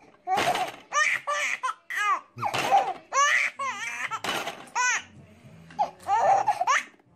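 A baby laughing in a run of short, high-pitched bursts of giggles, with a brief lull about five seconds in.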